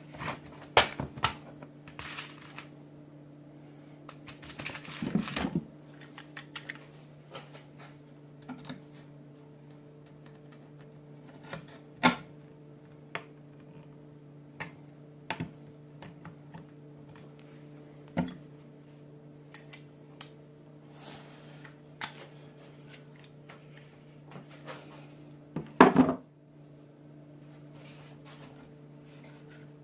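Scattered clicks, taps and knocks of hand tools and PVC duct pieces being handled, with a louder clatter near the end, over a steady low hum.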